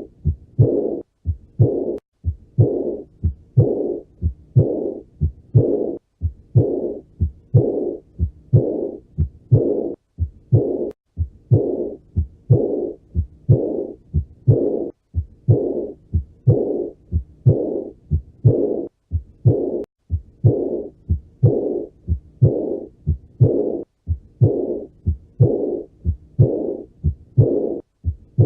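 Auscultated heart sounds of aortic regurgitation (aortic insufficiency), beating regularly at about one beat a second. Each beat has short thumps followed by a blowing murmur that fades away, the early diastolic decrescendo murmur of blood leaking back through an incompetent aortic valve.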